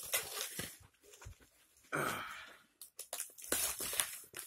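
Cardboard box and bubble-wrap packaging being handled and torn open, rustling and crinkling in short, irregular bursts. A brief pitched vocal sound comes about two seconds in.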